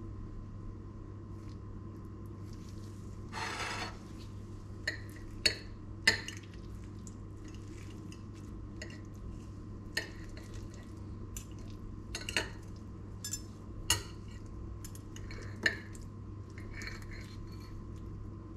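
Metal fork and knife clinking and scraping on a ceramic plate while cutting a soft spinach omelette: about nine sharp clinks scattered irregularly, and one longer scrape about three seconds in.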